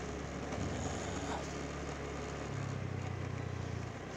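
Motorcycle engine running steadily while riding, with road and wind noise; the engine note is a little stronger from about two and a half seconds in.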